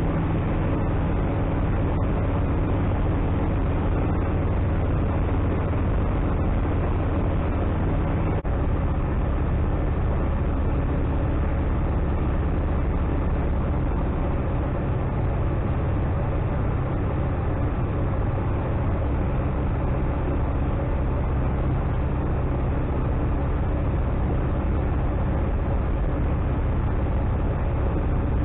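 Atec Zephyr light aircraft's engine and propeller running steadily in flight, heard from inside the cockpit, with the pitch shifting slightly about eight seconds in.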